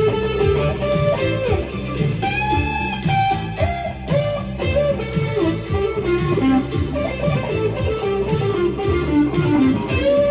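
Electric guitar driven through a Friedman BE-OD Deluxe overdrive pedal, playing a sustained lead melody with note bends over a steady rhythmic low-end pulse.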